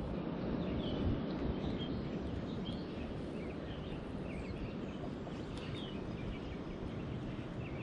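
Steady outdoor noise, a wash of wind and moving water, with faint bird chirps scattered through it.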